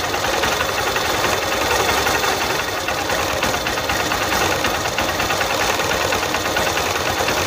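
Air-cooled motorcycle engine running steadily just after a kick start, without a battery: its ignition is fed directly from the magneto coil's AC output.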